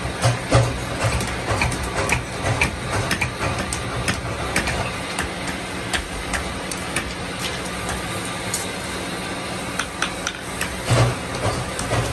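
Irregular metallic clinks and hammer taps from hand-forging iron wiring hooks, with tongs and rods handled at the anvil and fire, over a steady low hum. The loudest knocks come near the end.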